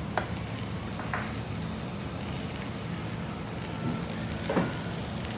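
Steady sizzling hiss of frozen pork belly slices on a grill tray over a tabletop gas burner, with a few sharp clinks of glassware and metal dishes.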